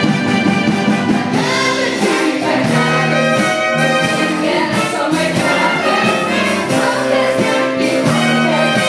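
Live pit band of brass and clarinets playing a lively show tune, with the cast singing along.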